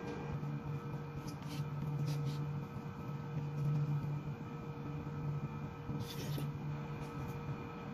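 Soft eating sounds: a plastic spoon scraping and scooping rice in a plastic bowl, with a few brief mouth sounds, over a steady low electrical hum that is the loudest thing throughout.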